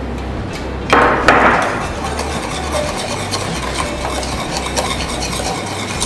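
Wire whisk stirring thick custard in a metal saucepan as bread crumbs are added, with a louder scrape about a second in, then steady whisking with light clicks of the whisk against the pan.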